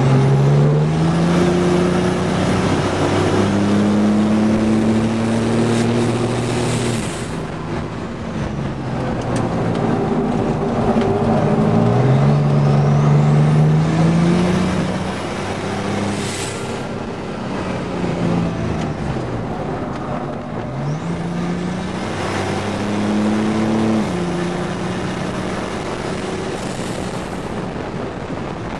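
GMC Syclone's turbocharged 4.3-litre V6, heard from inside the cab under hard acceleration on a race track. The engine note rises, drops at each upshift and builds again several times, over steady wind and tyre noise.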